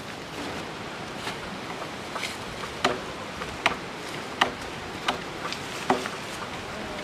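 Footsteps crunching through dry stalks and leaf litter, a sharp crackle about every 0.8 s, over a faint outdoor hiss.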